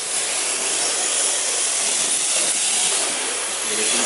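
Steady hiss of a pair of electric radio-controlled drift cars sliding sideways in tandem across a smooth floor track, their hard tyres scrubbing the surface and small motors running.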